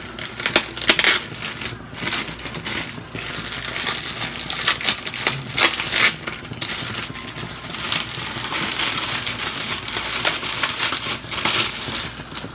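Plastic bag crinkling and brittle dried rice vermicelli (bihon) crackling and snapping as the bag is squeezed and the noodles are pulled out by hand, in many irregular sharp crunches.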